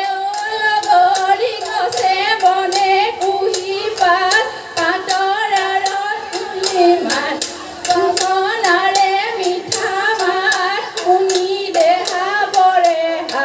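Women singing a Jeng Bihu song in long held, ornamented notes, over a steady rhythm of hand claps.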